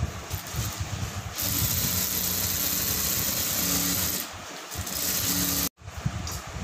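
Sewing machine stitching a seam through dress fabric in bursts: it runs fast and steady from about a second and a half in, slows briefly, runs again, and cuts off abruptly near the end.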